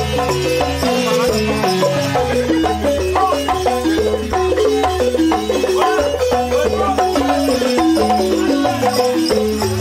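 Live balafon music: gourd-resonated wooden xylophones played in a fast, dense run of short notes over a steady low pulse, with a shaker rattle shaken along.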